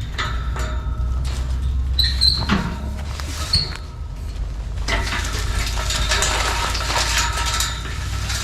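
A 4x4 truck moving over rough, muddy ground: a steady low rumble with knocks, a few short high squeaks a couple of seconds in, and a longer stretch of rattling in the second half.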